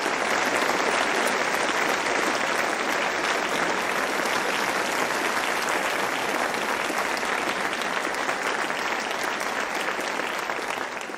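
Steady applause from many clapping hands, fading out at the end.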